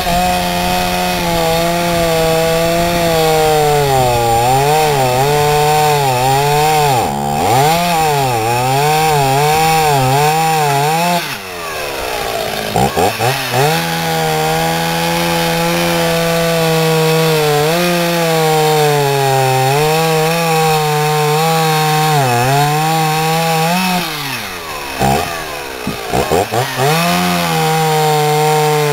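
Two-stroke chainsaw running at high revs while cutting wood, its pitch sagging and recovering again and again as the chain bites. The revs fall away briefly about eleven seconds in and again around twenty-five seconds in, then climb back.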